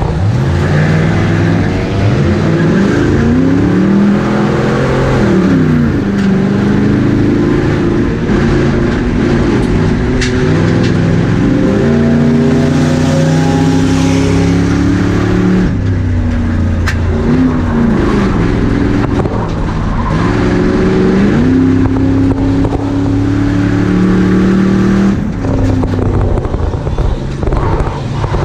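Race car engine heard from inside the cabin, revving up and easing off again and again as the car is driven hard around the track.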